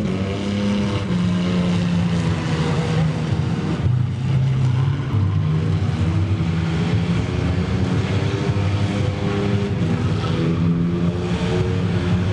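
Chevrolet Opala engine revving hard and continuously, its pitch stepping up and down every second or so, while the car spins donuts with its rear tyres spinning and smoking.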